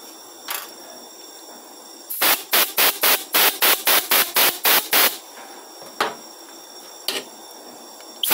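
Compressed-air blow gun fired through a piston oil cooling jet fitting in about a dozen quick hissing puffs, about four a second, blowing it clear and pushing its spring check valve open to show it isn't sticking. A few light clicks come before and after the puffs.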